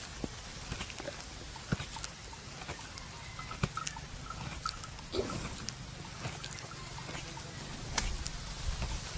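Buffalo chewing its cud: soft, irregular clicks and crunches from its jaws and teeth, with a short breathy rush about five seconds in.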